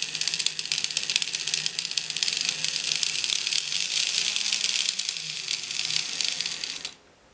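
LEGO Technic Buggy Motor running with its gearbox open, the reduction gears giving a rapid rattling knock over a low motor hum. The knocking comes from the first gear of the reducer, whose teeth are worn almost away. It stops abruptly near the end.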